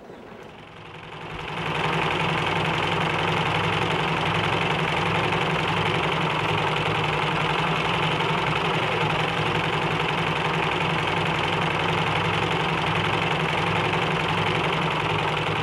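Motor-driven machine running steadily, a loud even drone with a low hum under a dense mechanical noise; it fades in over the first second or two.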